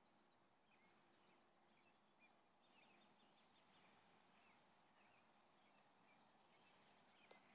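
Near silence: faint outdoor background with scattered, faint bird chirps.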